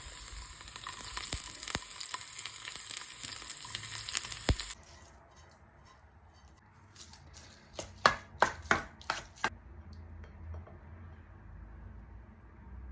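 Hot oil sizzling and crackling in a pan, which stops abruptly about five seconds in. A few seconds later comes a short cluster of about six sharp clicks.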